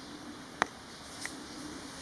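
Quiet room tone with a faint steady hum, broken by one sharp click about half a second in and a fainter tick a little later.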